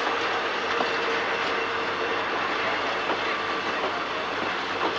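Passenger train carriages rolling slowly over the tracks, wheels clicking over the rail joints, with a faint steady tone through the first half.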